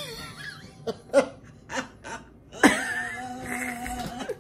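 A person laughing hard and breathlessly: short gasping bursts, then a long high-pitched laugh starting about two and a half seconds in.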